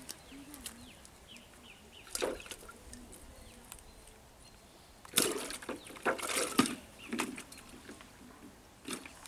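Outdoor ambience with small birds chirping faintly in the first two seconds, then several short rustles and knocks, the loudest between about five and seven seconds in.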